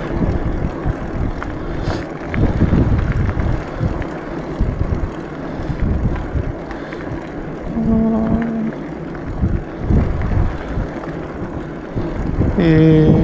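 Wind buffeting the microphone of a handlebar-mounted camera on a moving fat-tyre bicycle: an uneven low rumble that swells and drops throughout.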